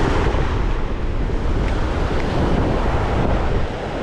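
Ocean surf breaking and washing over a rocky reef shelf, with wind buffeting the microphone in a steady low rumble.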